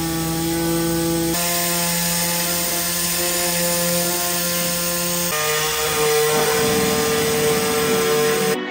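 Steady machine hum with a drone of even tones under a hiss. It jumps to a new pitch about a second in and again about five seconds in, then cuts off just before the end.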